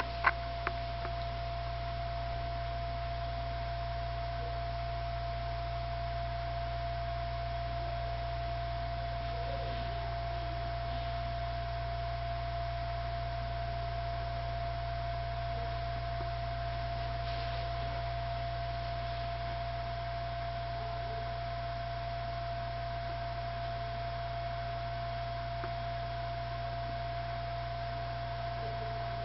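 A steady hum with a constant, unchanging tone held above it, and a couple of small clicks right at the start.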